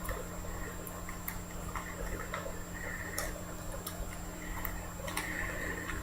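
Small clicks and brief rustles of trading cards and plastic card holders being handled and taped, over a steady low electrical hum.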